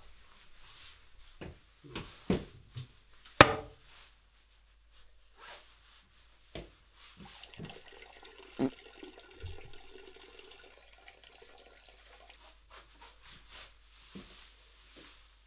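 Scattered knocks and rubbing as things are handled in a small tiled bathroom, with one sharp knock about three and a half seconds in. A steady hiss lasts about five seconds in the middle.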